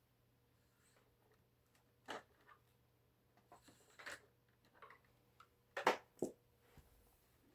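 A few short clicks and knocks, handling noise around an upright vacuum cleaner with its motor switched off, the loudest two close together near the end, over a faint steady hum.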